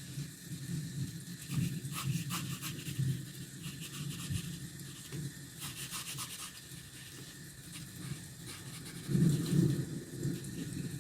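A drawing tool scratching and rubbing on sketchbook paper in uneven strokes, with sharper scratchy strokes about two seconds in and again around six seconds, and a louder rubbing swell near the end.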